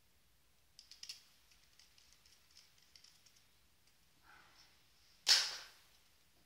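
Small plastic clicks and rattles as a salvaged optical-drive sled mechanism with its driver board is handled and turned, then one sharper, louder knock about five seconds in.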